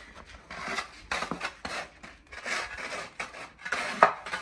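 Long-handled shovel scraping and crunching into snowy ground in several strokes, with a sharp knock of the blade about four seconds in.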